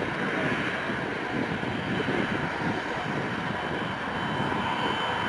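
The four Lotarev D-18T turbofans of an Antonov An-124-100M run as the freighter taxis and turns onto the runway. The jet rumble is steady, with thin high whistling tones over it, and it grows slowly louder.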